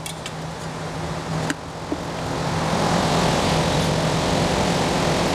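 Steady ventilation noise with a low hum, swelling louder over the first few seconds and then holding. A few light clicks come near the start and about a second and a half in.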